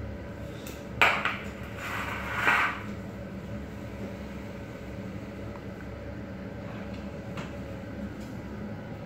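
Pots and kitchen utensils knocked and handled: a sharp clack about a second in, then a short clatter lasting under two seconds, over a steady low hum.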